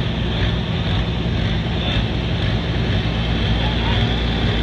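Diesel pulling-tractor engine running steadily at an even, low pitch, with no rise or fall in speed.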